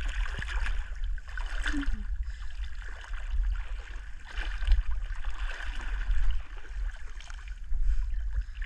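Wind buffeting the microphone in a fluctuating low rumble, over a steady hiss of moving water.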